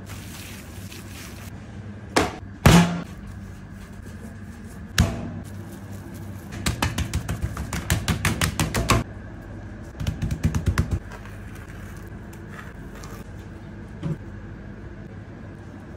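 Food preparation on a cutting board: a few sharp knocks, then two fast runs of short taps or slaps, several a second, over a steady low kitchen hum.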